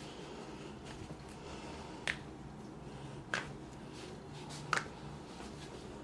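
Three short, sharp clicks about a second and a half apart over a quiet room.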